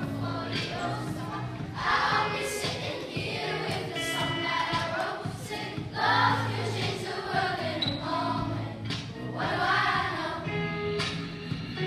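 A class of primary school children singing together as a choir, with held notes over a musical accompaniment.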